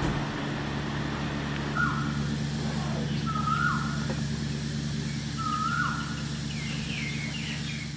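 A bird calls three times, each a short held note that drops in pitch, with fainter higher chirps near the end, over a steady low machine hum.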